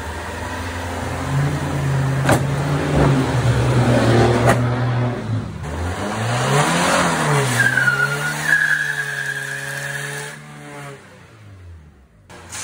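Fiat Punto engine held at high revs while its front tyre spins on wet concrete in a burnout, sending up tyre smoke. The revs dip and swing up and down about six seconds in, then a high tyre squeal sets in and holds for about three seconds before the sound falls away near the end.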